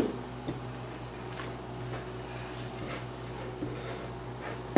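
Hands kneading soft wheat-flour dough in a glass bowl: faint squishes and a few soft knocks against the bowl, over a steady low hum.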